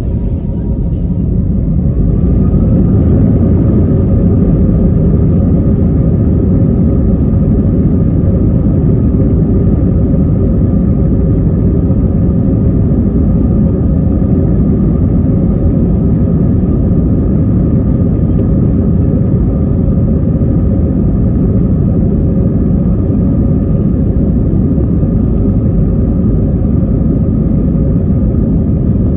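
An Airbus A320-232's IAE V2500 jet engines, heard from inside the cabin, spool up to takeoff thrust. A whine rises in pitch over the first few seconds, then the sound settles into a loud, steady low rumble of engines and wheels through the takeoff roll.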